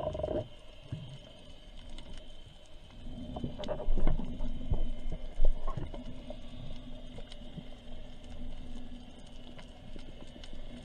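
Underwater sound picked up by a diver's camera: a steady low hum with scattered faint clicks. About three and a half seconds in come a few seconds of louder rumbling and knocks as the diver moves.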